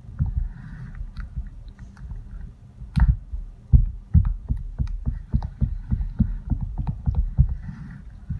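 Spatula stirring hot-process soap batter in a plastic bowl: wet, squelching stirring, with a quick run of knocks against the bowl, about two or three a second, starting about three seconds in.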